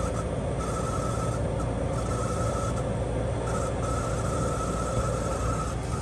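Chinese diesel air heater running, its fan motor giving a scrapey rasp over a steady hum, with a high whine that comes and goes several times. The fan-motor bearings are worn and getting progressively worse.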